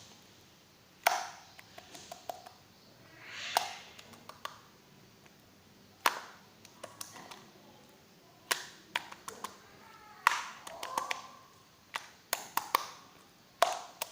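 Clear jelly slime being squeezed and poked by hand: irregular sharp clicks and short pops, a few at a time with short pauses between.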